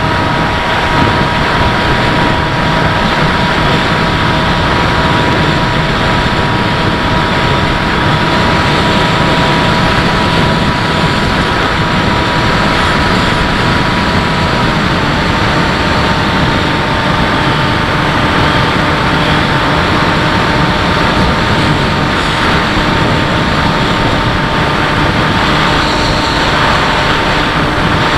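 Electric motor and propeller of a Bixler RC model plane running steadily, with a thin motor whine over a loud rush of air noise. About halfway through, the whine's pitch shifts slightly as the throttle changes.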